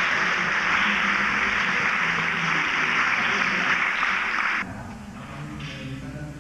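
Audience applauding steadily, cutting off abruptly about four and a half seconds in, after which faint voices in a room are heard.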